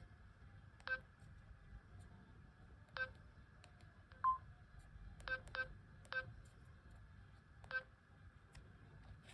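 Olympus mju 5000 digital camera beeping as its buttons are pressed: six short, identical electronic beeps at uneven intervals, with one higher-pitched, louder beep about four seconds in.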